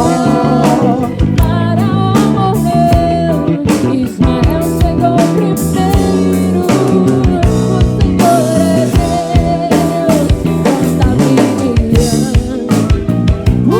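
Live band playing soul-gospel music: drum kit, bass, keyboards and electric guitar, with a held sung or lead melody line over the top.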